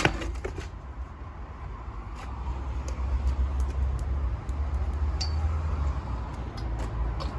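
A knock right at the start as the stunt scooter falls onto the wooden rail. After it comes a low, uneven outdoor rumble with scattered light clicks as the scooter is picked up off the rail near the end.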